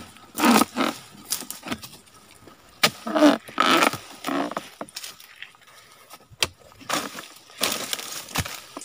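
A dodos, a chisel blade on a long pole, chopping into the fibrous frond and bunch stalks of a low oil palm: a series of irregular sharp chopping strikes, some followed by a short crunching scrape.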